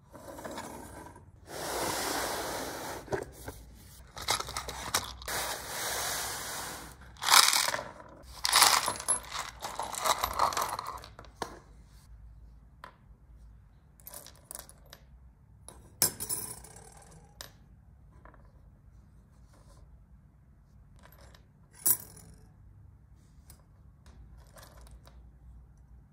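Small brass screws, nuts and knurled fittings rattling and clinking as they are tipped out of a plastic box onto a wooden tabletop, a dense clatter for about ten seconds. After that come scattered single clicks as the brass parts are moved about by hand.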